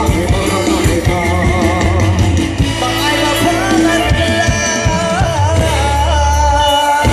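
Thai Isan song: a singer's voice over a band with bass, drums and guitar, ending in a long held note near the end.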